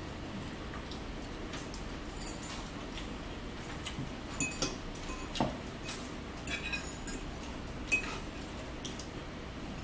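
Metal forks clinking and scraping against ceramic bowls and plates: scattered light clinks, most of them in the second half, the sharpest about eight seconds in.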